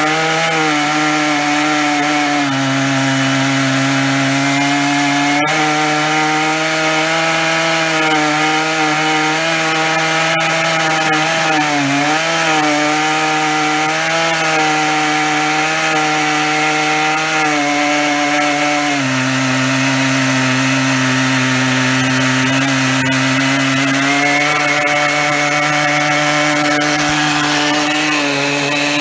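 Stihl 880 two-stroke chainsaw running at full throttle in a chainsaw mill, ripping lengthwise through an oak log under heavy load. The engine note is steady with small sags and rises in pitch as the load on the chain changes.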